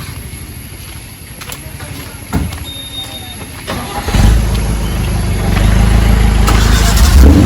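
Off-road vehicle's engine running low, then getting much louder about four seconds in as the vehicle pulls away.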